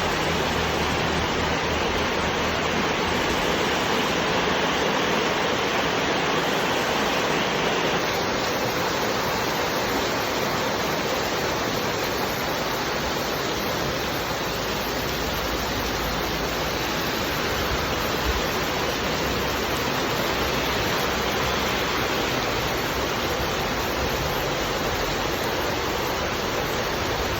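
Rain falling, a steady hiss.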